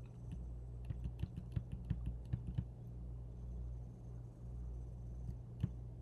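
Computer keyboard keys clicking in a quick run of about ten presses over the first few seconds, then once more near the end, stepping through images in a photo browser. A steady low hum sits underneath.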